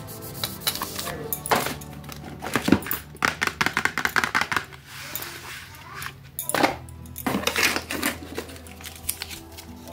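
Chocolate bar wrappers and packets rustling and tapping against a cardboard box as they are handled, in irregular clicks that cluster in the middle and again near the end, over background music.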